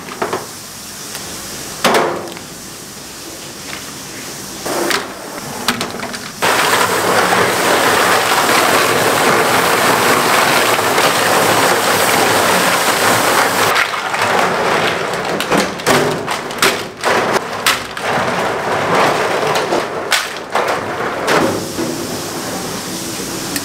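Kitchen work with seafood: a few knocks, then a loud steady rushing noise that starts suddenly about six seconds in and lasts about seven seconds, followed by a rapid run of clattering knocks.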